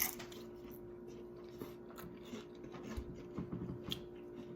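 Close-up chewing and crunching of crisp nacho chips, with irregular short crunches, over a faint steady hum.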